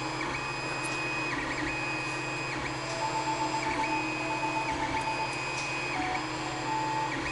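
3D printer running a print: its stepper motors whine in steady tones that start, stop and change pitch every second or so as the axes move, over a steady low hum.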